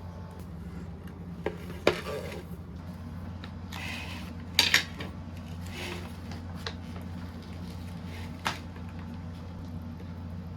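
Dishes and cutlery clinking: a handful of sharp clinks and knocks, the loudest pair about four and a half seconds in and a last one near the end, over a steady low hum.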